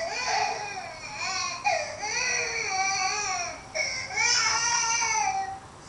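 A baby crying in several long, wavering wails with short breaks between them, the last dying away shortly before the end.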